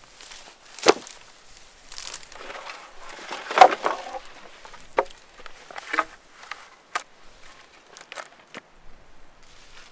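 Footsteps crunching, with irregular sharp cracks and knocks; the loudest comes about three and a half seconds in.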